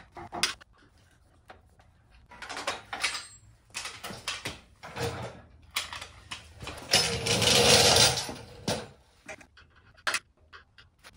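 Hand-work noises from taking the plastic filler panels off a Harley-Davidson Electra Glide's rear: short knocks and scrapes as bolts are loosened and the panels are pulled free. The loudest is a noisy rasping rush of just under two seconds, about seven seconds in, followed by a few sharp clicks.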